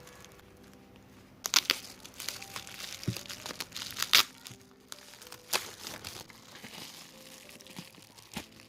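Packaging being handled and opened: crinkling with several sharp, loud crackles, the loudest about a second and a half in, again near four seconds and about five and a half seconds in. Soft background music plays underneath.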